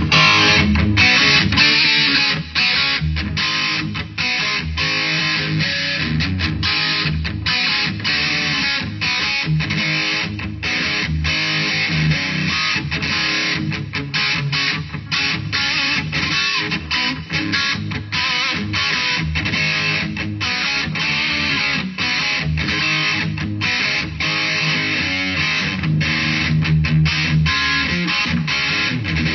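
Epiphone Les Paul Standard electric guitar played through a Line 6 Amplifi TT and a Boss Katana 212 amp on a clean setting, played without a break, with many sharp pick attacks.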